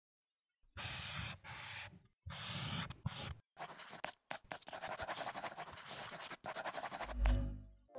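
Chalk scratching across a blackboard in runs of quick strokes, starting about a second in, with short breaks about two and three and a half seconds in. Near the end a deep boom swells and fades.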